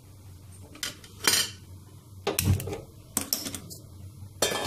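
Metal kitchenware clattering: a handful of separate clinks and knocks of pots and utensils, with one heavier knock about halfway through.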